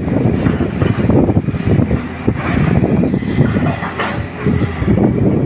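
Tracked hydraulic excavator working, its diesel engine running under load as the bucket scrapes into a soil face, with a rough, irregular crackle of earth; a sharp knock about four seconds in.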